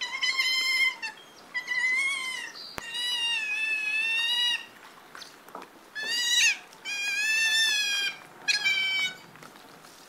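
Otter giving six high-pitched, drawn-out whining squeals, each lasting about half a second to a second and a half, some wavering in pitch and one rising sharply, then falling, about six seconds in.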